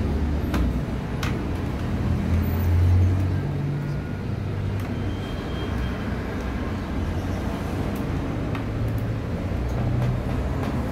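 Steady low rumble of background noise, with a few light clicks scattered through it as cable connectors inside an all-in-one computer are handled.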